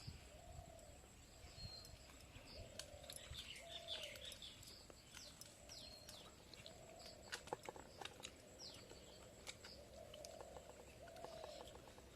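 Faint birdsong: quick high chirps and falling notes over a string of short, repeated lower calls, with a few light clicks about halfway through.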